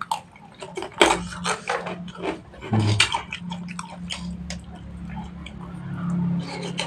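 Close-up mouth noises of a person eating instant noodles and macaroni: wet smacking, chewing and slurping clicks, busiest in the first half. A low steady hum carries on through the second half.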